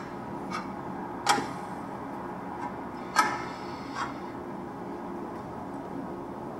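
A knife tip tapping down on a plate at a table: a few sharp clicks with a short ring, the two loudest about a second in and about three seconds in, over a low steady hum.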